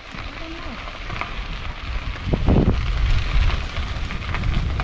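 Wind buffeting the microphone of a camera riding on a moving bicycle, with a crackly hiss of tyres rolling on the paved trail. The low rumble of the wind grows stronger about two seconds in.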